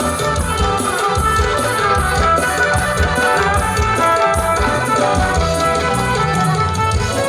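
Music with a steady drum beat and brass instruments.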